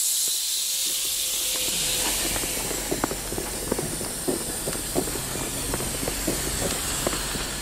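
Long loud hiss of compressed air venting from a passenger train's air brakes, slowly fading and dying away near the end. Footsteps on the platform pavement tick along at a walking pace underneath.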